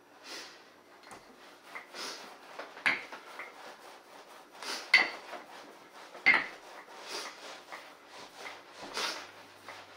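Wooden rolling pin rolling out knish dough on a silicone baking mat: repeated rubbing strokes every second or two, with a few sharp knocks.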